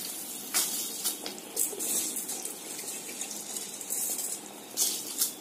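Water boiling in an open pressure cooker, a steady bubbling with a few short louder splashes as soaked rice is tipped into it.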